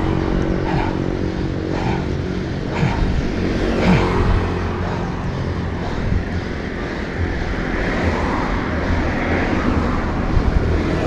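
Road traffic noise: motor vehicle engines running by, over a steady low wind rumble on the microphone.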